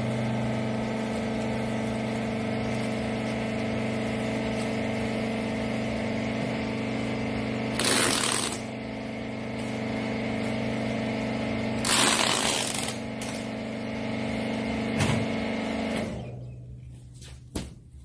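Hydraulic baler's motor and pump humming steadily, with two short loud bursts of noise about eight and twelve seconds in. The hum shuts off near the end, followed by a few clicks.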